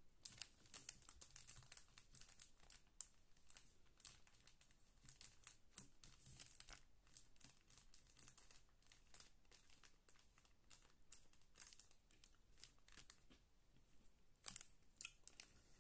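Faint crinkling and scratching of a plastic bag as it is written on with a marker and held flat by hand, with a few sharper ticks near the end.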